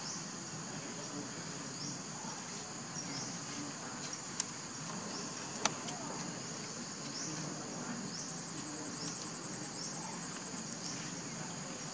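Steady, high-pitched chorus of insects with short, repeated chirps over it. Two sharp clicks come about four and a half and five and a half seconds in.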